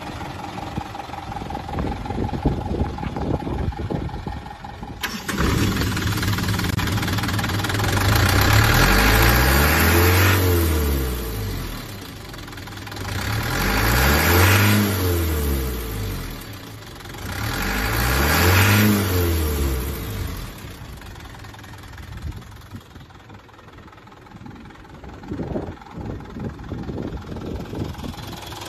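1999 Mitsubishi Canter dump truck's 4D33 four-cylinder diesel engine idling, then revved up and let fall back three times, about four seconds apart, before settling back to idle.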